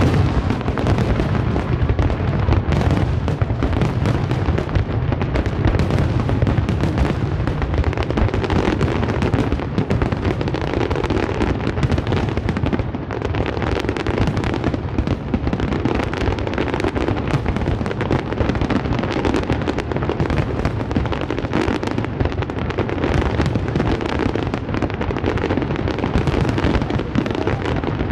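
Fireworks display at full barrage: aerial shells bursting one on another, many sharp bangs a second with no gaps, at a steady loud level.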